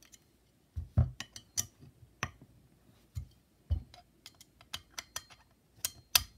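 Metal parts of a skateboard motor mount and truck being handled, with a hex key seated in a clamp bolt: irregular sharp clicks and light knocks, a few with a dull thud, the loudest about a second in and near the end.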